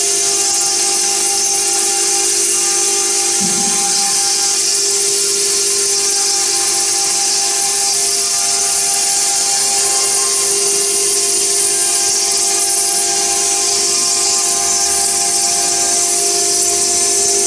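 CNC router spindle cutting a stone tombstone with water coolant: a steady whine of several held pitches over a bright hiss from the bit grinding the wet stone.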